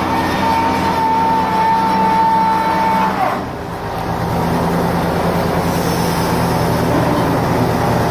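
Electrical distribution transformer humming: a steady low hum. A higher steady whine over it bends down in pitch and fades about three seconds in.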